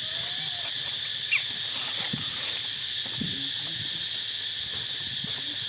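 Steady, high-pitched insect chorus buzzing without a break, with faint rustling underneath and one short rising chirp about a second in.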